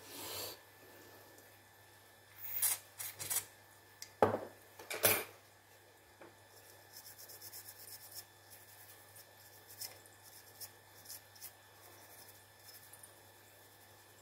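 Small hand tools worked against a wireless microphone's circuit board: a brief scratchy rub, then a cluster of sharp clicks and taps about two to five seconds in, followed by light scraping and scattered ticks.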